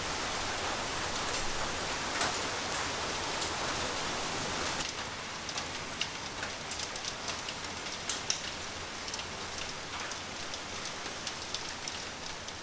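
Rain falling: a steady hiss with many small sharp drop clicks scattered through it, a little louder in the first few seconds.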